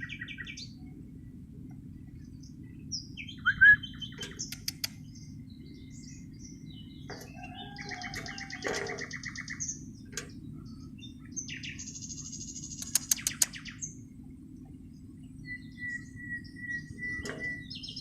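Javan bush lark (branjangan) calling in bursts of short, buzzy trills and chirps, with a few sharp clicks, over a steady low hum.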